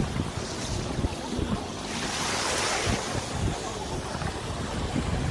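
Ocean surf washing with wind buffeting the microphone; a wave swells in a hiss about two seconds in.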